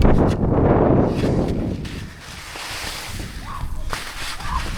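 Edges scraping and carving over rough, ungroomed snow during a descent, with wind buffeting the microphone. The rush is loudest in the first two seconds, drops, then builds again as another turn comes.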